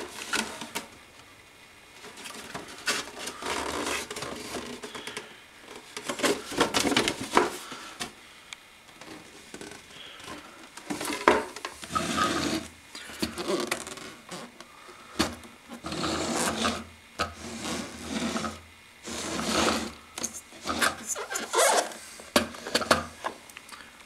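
Hands handling a cardboard toy box and a small plastic toy washer: irregular rustling, rubbing and scraping noises that come in short bursts with quiet gaps.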